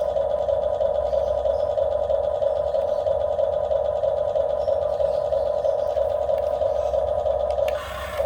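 Small electric motor of a radio-controlled construction model running with a steady whine. It dips briefly with a few clicks near the end.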